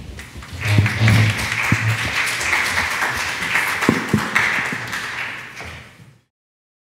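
Audience applauding, with a few knocks mixed in, dying away and cut off about six seconds in.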